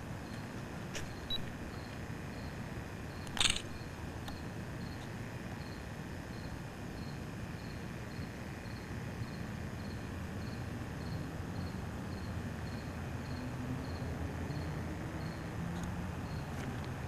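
Outdoor night ambience: a low steady rumble with a faint high chirp repeating about three times a second, and one sharp click about three and a half seconds in.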